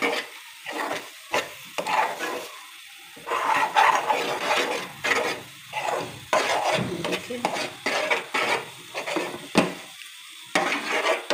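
Metal spoon stirring and scraping thick wheat-flour halwa around a metal frying pan in irregular strokes, with a sharp knock of the spoon against the pan near the end.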